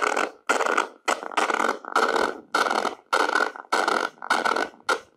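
Bastl Kastle 1.5 mini modular synth playing a rhythmic pattern of short noise bursts, about two a second, each starting suddenly.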